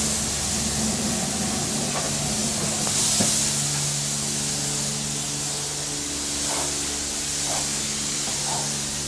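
High-pressure car-wash spray wand hissing as the jet hits a car's bodywork, with a steady low hum underneath.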